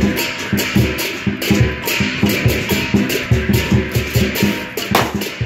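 Live lion dance percussion: a large drum beating a steady, driving rhythm together with crashing cymbals and gong, accompanying the lions' greeting.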